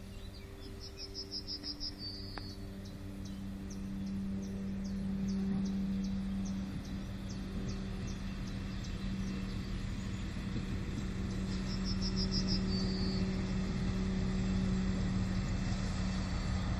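Diesel railcar approaching slowly, its engine making a steady low drone that grows louder as it nears. Insects chirp over it in regular faint ticks, with two short trills.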